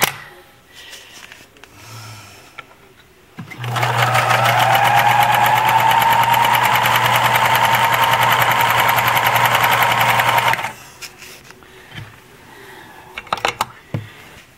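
Riccar 3500 electric sewing machine sewing a zigzag stitch: after a few quiet seconds the motor starts, speeds up briefly, then runs steadily for about seven seconds with a rapid needle rhythm before stopping. A few light clicks follow near the end.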